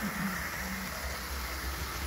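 Hornby OO-gauge LNER A4 model locomotive running round the layout track: a steady low rumble of its motor and wheels on the rails.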